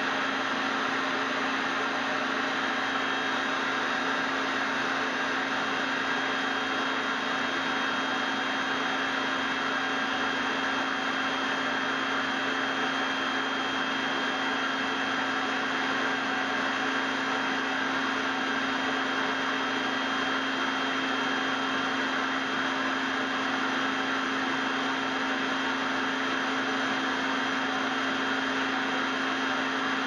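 A La Germania 850 W vacuum cleaner running at a constant speed: a steady rush of air over the motor's whine, with a low hum underneath.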